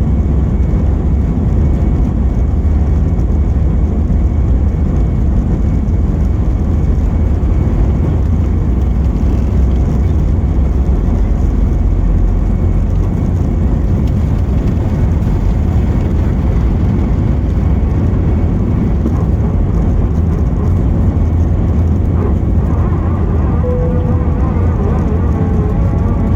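Steady, loud cabin rumble of an Airbus A321's jet engines and airflow, heard from inside the passenger cabin.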